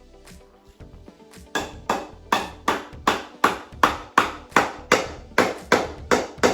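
A hammer striking repeatedly at an even pace, about three blows a second, starting about a second and a half in, each blow ringing briefly, over background music.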